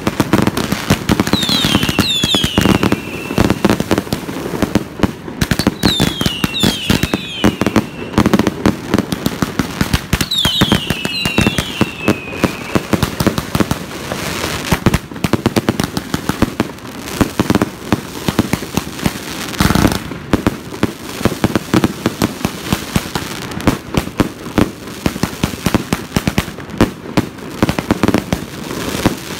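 Ground-launched fireworks firing a rapid barrage of pops and crackles. Pairs of falling whistles sound three times in the first half, and a louder boom comes near the middle.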